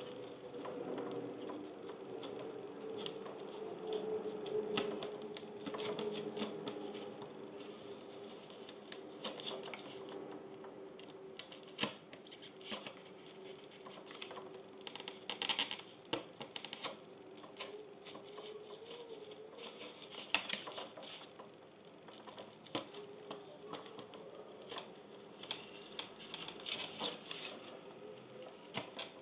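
Irregular small clicks, snips and rustles of hands working foam plates with craft tools, with a few sharper snaps now and then over a faint steady drone.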